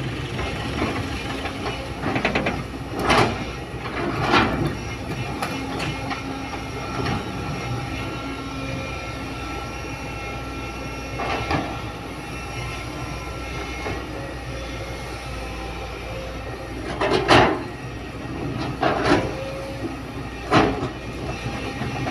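Sumitomo hydraulic excavator's diesel engine running steadily under load, with a faint steady whine. It is broken by irregular loud metallic clanks and thumps as the bucket digs into the soil bank, the loudest about two-thirds of the way through.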